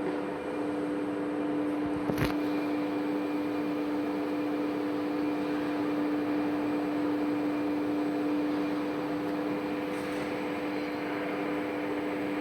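Blue Elephant 1530 ATC CNC router running a cycle: a steady machine hum with two held tones over a noisy background, and one sharp click about two seconds in.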